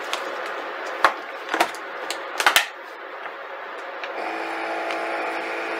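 Countertop vacuum sealer: a few plastic clicks and knocks as the bag is fed in and the lid is closed, then, about four seconds in, its vacuum pump starts and runs with a steady hum as it draws the air out of the bag.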